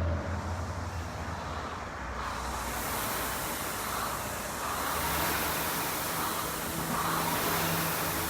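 Air rowing machine's fan flywheel whooshing, swelling with each pull stroke about every one and a half to two seconds.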